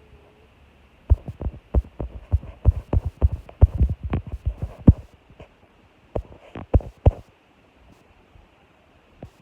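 An irregular run of dull, low thumps and knocks for several seconds, then a few more after a short pause and a single one near the end.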